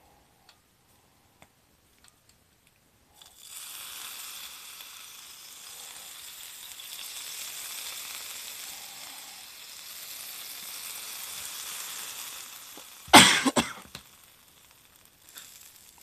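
Soy sauce added to shrimp shumai frying on an electric hot plate sizzles from about three seconds in for some ten seconds. Near the end comes one short, loud knock.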